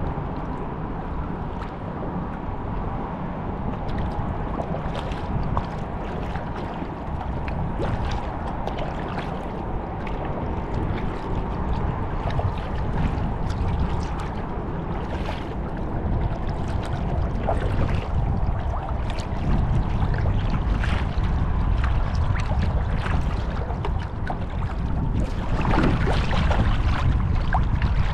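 Wind buffeting the microphone with a steady low rumble over choppy water splashing and lapping against a kayak's hull as it is paddled, with scattered splashes and drips from the Epic Mid Twist paddle's blades. A bit louder in the second half, with a heavier splash near the end.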